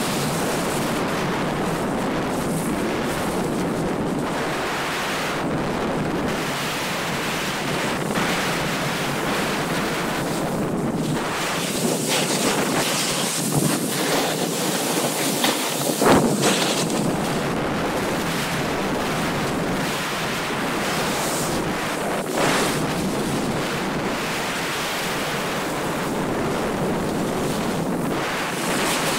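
Wind rushing over the microphone of a camera riding down a groomed ski slope, mixed with the steady hiss of edges sliding on packed snow. There are a few brief louder surges, the biggest about halfway through.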